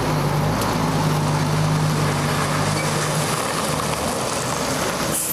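Road traffic passing close: a heavy lorry's diesel engine drones under the noise of tyres on a wet, broken road surface, with cars going by. The engine tone drops lower about three seconds in.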